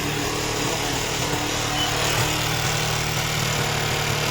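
Suzuki Gixxer's single-cylinder engine running steadily with a knocking noise from the piston. The bike was run without oil, so the piston seized and is now loose in the cylinder, a worn piston rather than a chain tensioner fault.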